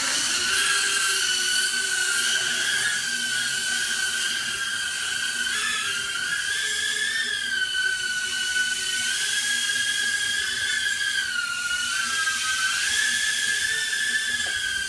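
Inductrix FPV micro quadcopter flying, its four tiny brushed motors and ducted propellers making a steady high whine. The pitch wavers up and down as the throttle changes, dipping about six seconds in and again about twelve seconds in.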